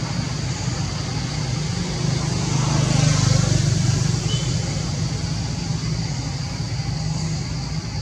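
Steady outdoor background noise: a constant low rumble with a high, even hiss above it, swelling slightly about three seconds in, and a brief faint high chirp just after four seconds.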